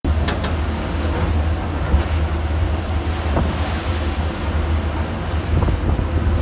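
Strong wind rumbling on the microphone over the steady rush of a rough, storm-tossed sea, with waves and spray breaking.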